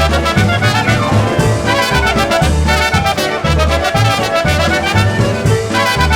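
Instrumental polka band music: brass leads the melody over a steady oom-pah bass beat.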